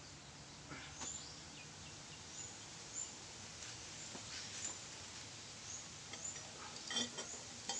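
Quiet ambience with small birds chirping in short high notes throughout. A few light metallic clicks come near the end as a welding ground clamp is clipped onto the exhaust pipe.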